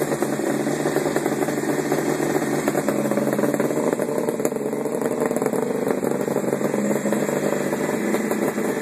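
Kawasaki H2 Mach IV 750's air-cooled three-cylinder two-stroke engine idling steadily. It has been rebuilt with a new crankshaft and has just been fired up, not yet tuned.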